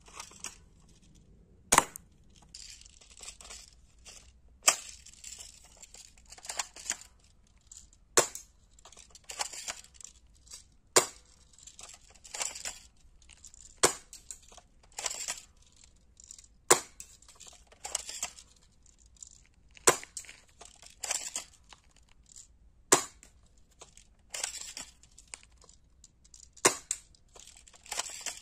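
Toy plastic MP40 BB gun firing single shots, nine sharp snaps about three seconds apart, with plastic rattling and clicking as the spring gun is cocked between shots.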